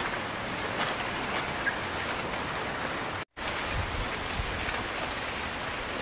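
Steady outdoor hiss like wind, with a few faint bird chirps in the first two seconds and some low rumbles later; the sound drops out completely for a moment a little over three seconds in.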